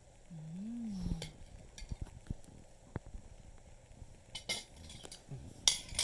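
Forks or spoons clinking against plates as cheesecake is eaten: a few sharp clinks, the loudest cluster near the end. A short hummed voice sound, rising then falling, comes about half a second in.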